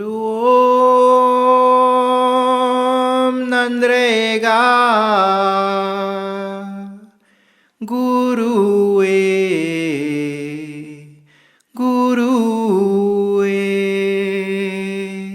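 A single voice singing three long, unaccompanied held phrases without words, each with wavering ornaments and falling pitch: the sung introduction of a devotional hymn to the goddess Mariamman.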